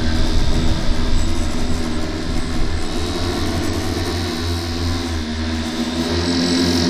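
Alauda Mk2 flying-car test platform, a large electric multirotor, flying overhead. Its propellers and motors make a steady low buzzing hum that dips a little midway and swells again near the end.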